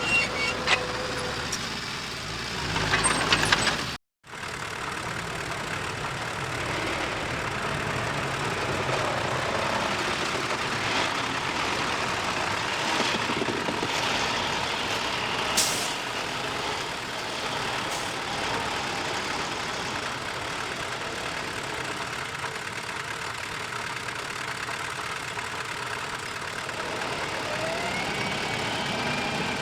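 Diesel engines of heavy earthmoving machinery running steadily, with a brief hiss about halfway through and a few knocks early on. The sound cuts out for an instant about four seconds in.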